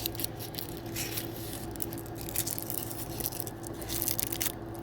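Small plastic packaging and tiny plastic doll accessories handled by hand: light crinkling, rustling and little clicks over a steady low hum.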